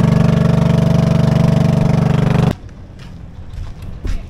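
Small motorboat's engine running steadily at speed, cutting off suddenly about two-thirds of the way through, leaving quieter outdoor noise with a few light knocks.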